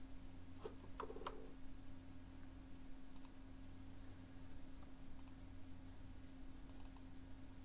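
Faint, scattered clicks of a computer mouse and keyboard, a few single clicks spread over several seconds with a small cluster near the end, over a steady low hum.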